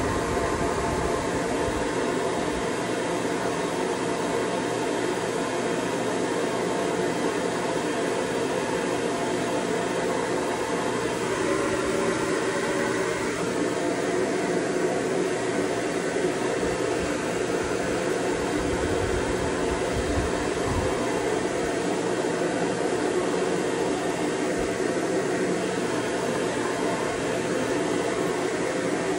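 Shower running: a steady hiss of water spray, with no pause or change.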